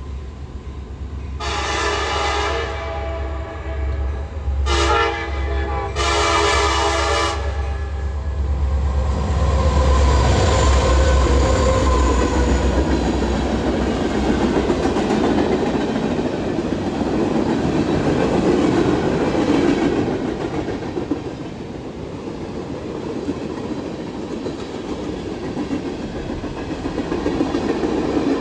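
A CSX freight train's locomotive horn blows three blasts, long, short, long, a multi-note chord that sounds unusual. Then the two lead SD70ACe diesel locomotives rumble past, followed by freight cars rolling by with steady wheel-on-rail noise and clickety-clack from the rail joints.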